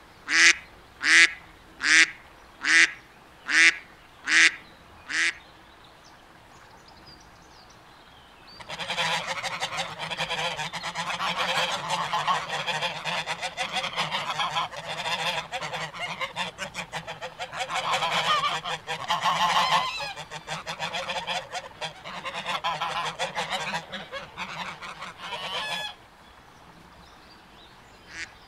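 A mallard hen quacks in a steady run of about seven calls, then a few seconds of quiet. From about nine seconds in, a flock of geese honks continuously and noisily for around seventeen seconds, then stops.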